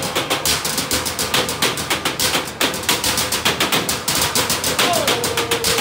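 Fast trash-can drumming: drumsticks beating a dense, even run of strikes on metal garbage cans and plastic buckets, several hits a second.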